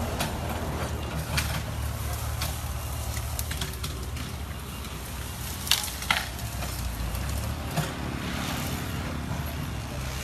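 Small excavator's engine running steadily as it works its bucket through brush, with scattered sharp cracks of branches and twigs snapping.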